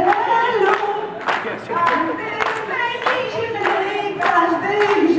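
A small group of women singing together, with steady hand-clapping keeping the beat at about two claps a second.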